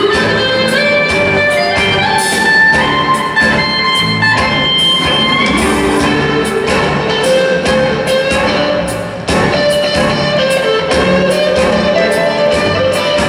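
Live electric blues band playing: a lead electric guitar solo of climbing, held notes over bass, rhythm guitar and a steady drum beat.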